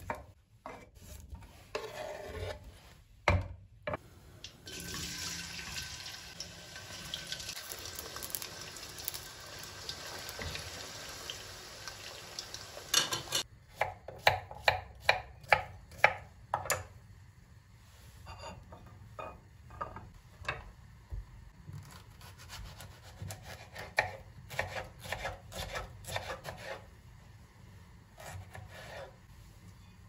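Chef's knife slicing cucumber on a wooden cutting board: runs of quick, even chops, the first starting about halfway through and more following. Earlier, potato slices are scraped off the board into a steel mesh colander, then a steady hiss lasts about eight seconds.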